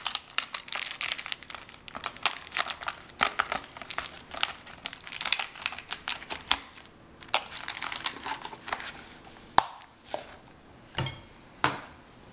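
Packaging being crinkled and handled during an unboxing, a dense run of crackling that gives way to a few separate sharp knocks in the last few seconds.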